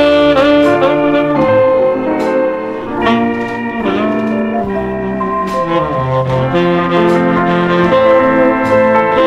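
Easy-listening dance-band music from a 1969 non-stop medley LP: a brass section holds long, slightly wavering melody notes over a moving bass line and regular cymbal taps.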